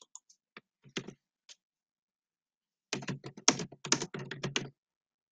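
Typing on a computer keyboard: a few scattered key clicks, then a quick run of about a dozen keystrokes starting about three seconds in.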